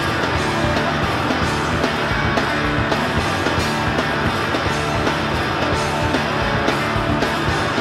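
Indie punk rock band recording: electric guitar and drums playing steadily at full volume.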